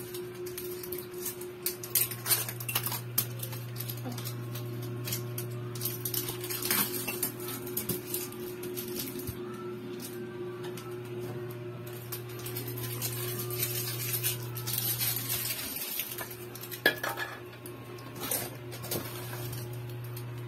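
Scattered clicks, knocks and clinks of a small two-door refrigerator being handled, its doors and plastic parts tapped and moved, with a rustle of plastic wrapping, over a steady low hum.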